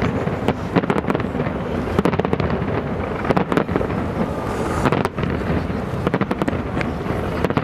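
Fireworks display: aerial shells going off in many bangs in quick, irregular succession over a continuous low rumble.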